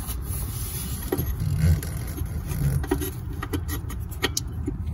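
Light clicks and knocks of the EGR control solenoid and its metal bracket being handled and pulled out of the engine bay, most of them in the second half, over a steady low rumble.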